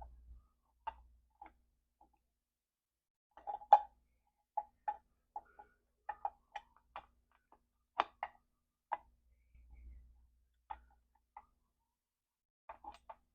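Irregular sharp metallic clicks and knocks of drum brake shoes, with their return springs fitted, being worked and slid onto the brake plate's pivot and actuator, the loudest knock about four seconds in.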